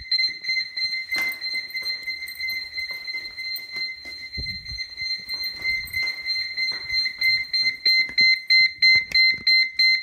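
Electronic alarm sounder of a security/fire alarm setup, beeping a steady high-pitched tone about three times a second after the security panel has re-alarmed. Light knocks and handling noise sound over it; the beeping is softer for a few seconds in the middle and loud again near the end.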